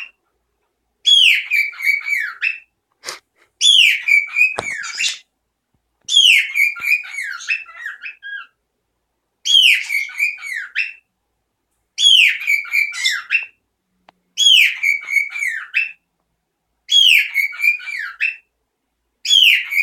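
A pet bird loudly whistling the same short song phrase over and over, about every two and a half seconds; each phrase opens with a falling whistle and runs into quick wavering notes.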